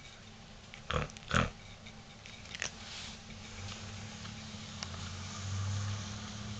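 Two dull knocks close together about a second in, a lighter click a little later, then soft low rustling as the camera and bedding are handled.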